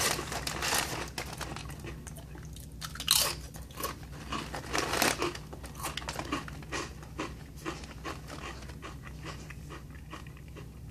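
A person biting into and chewing ridged oven-baked potato crisps, with a rapid run of dry crunches that are loudest and thickest in the first few seconds, one sharp crunch about three seconds in, then thin out toward the end.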